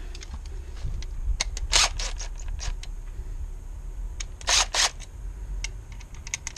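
Scattered clicks and a few short scrapes of hands and tools working the wiring in a pool timer box, over a low steady hum.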